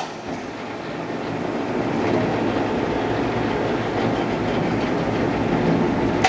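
Blanchard #20-36 vertical rotary surface grinder running with its wheel spindle spinning and magnetic chuck rotating, while the saddle traverses in under the wheel. A steady mechanical running sound that builds a little over the first couple of seconds and then holds level.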